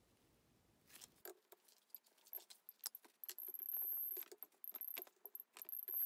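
Radiation survey meter clicking irregularly as its probe picks up the americium-241 source. The audio is sped up four times. The clicks start about a second in and come faster, and a faint high whine comes and goes in the second half.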